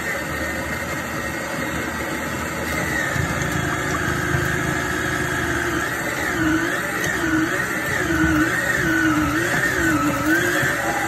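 Yonanas 988BK frozen-fruit soft serve maker's motor running as it churns frozen fruit into soft serve. It gives a steady whine whose pitch wavers up and down repeatedly in the second half.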